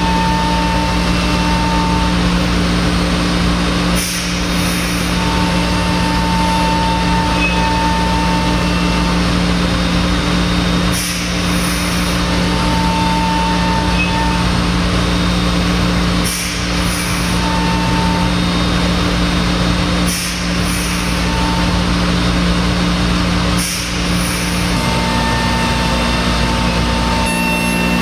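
5-axis CNC router milling a block of stacked wooden boards: a loud, steady spindle and cutting hum with a held pitch, broken every few seconds by a short high hiss.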